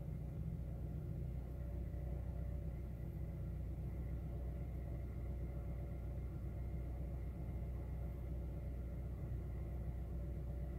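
2008 Honda Fit's four-cylinder engine idling steadily, heard from inside the cabin as an even low rumble; the owner thinks it still sounds like it is misfiring.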